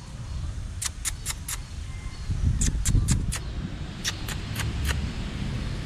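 Outdoor ambience: a steady low rumble, with short sharp ticks that come in three quick runs of about four.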